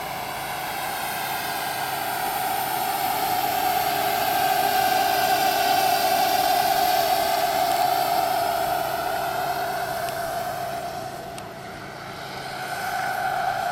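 JetCat PHT3 turbine of a 1:4-scale Eurocopter EC 145 model helicopter in flight: a steady high whine with rotor sound. It swells as the helicopter passes close midway, fades for a moment near the end as it moves off, then grows louder again.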